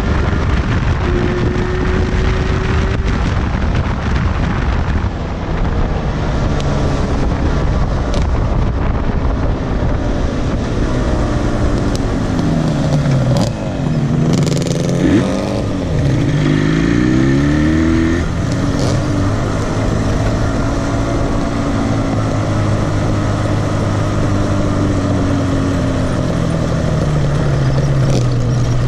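Two-stroke twin motorcycle engine on the move, its pitch rising and falling through throttle changes, under heavy wind buffeting on the microphone. Around the middle the engine pitch sweeps quickly down and up several times as the rider slows and gets back on the throttle, and near the end it runs slower and lower.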